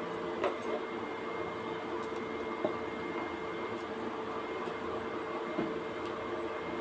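Steady machine hum with a faint constant whine, and a few soft ticks in the first three seconds.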